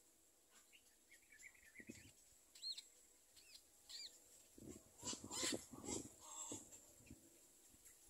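Faint, short, high chirps of small birds, followed about five seconds in by a brief cluster of louder, rough, noisy sounds.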